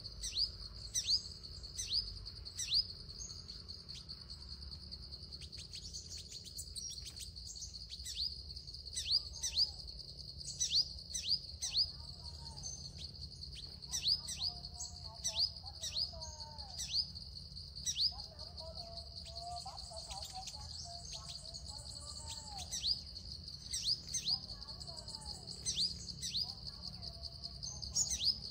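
Sunbirds calling: short, sharp down-slurred chirps repeated at irregular intervals over a steady high insect drone, with lower warbling bird calls joining through the middle.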